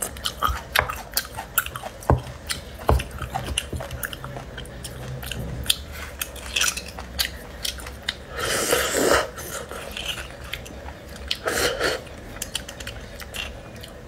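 Close-miked eating sounds from roasted beef bone marrow: chewing and lip-smacking with many small wet clicks, and two longer sucking sounds, about eight and eleven and a half seconds in, as the marrow is drawn from the bone.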